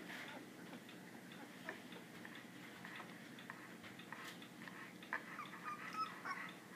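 Puppies making faint, irregular small clicking sounds, with a few brief high squeaks about five to six seconds in.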